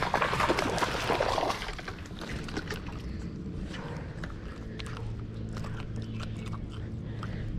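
A hooked bass splashing at the water's surface for about a second and a half, followed by lighter scattered ticks and rustles as it is swung into the boat.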